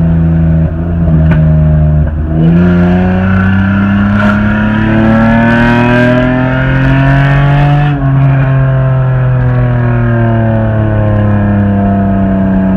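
Honda Accord V6 engine and exhaust pulling hard under acceleration, the pitch climbing for about six seconds. About eight seconds in it drops off and winds down slowly.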